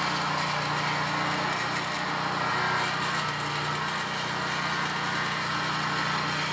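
A steady mechanical hum under a broad hiss, unchanging in level, like a running engine or machine.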